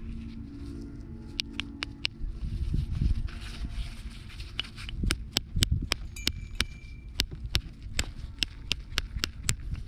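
Gloved hands handling and rubbing small corroded metal finds: a run of sharp clicks and scrapes, thickest in the second half, over a low rumble of handling noise.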